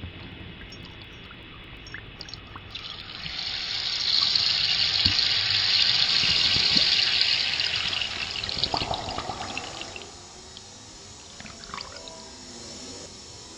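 Running water trickling, swelling from about three seconds in and fading away by about ten seconds.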